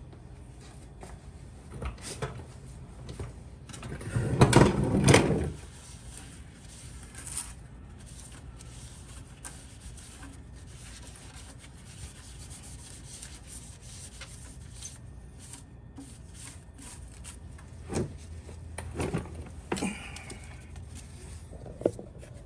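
Rubbing and scraping of a paper towel wiping oil off a car's oil pan around the drain plug. There are scattered small clicks throughout, and a louder rubbing burst about four seconds in.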